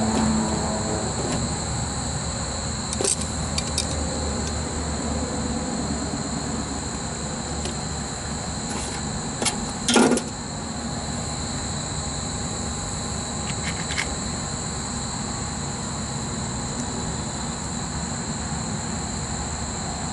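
Small clicks and taps of hand wiring work at the contactor terminals in a condensing unit's control panel, with one sharp knock about halfway through. Underneath runs a steady background hum with a constant high-pitched whine.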